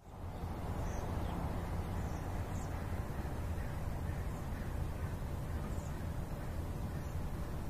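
Steady low rumble inside a moving car's cabin, road and engine noise, with a few faint short chirps high above it.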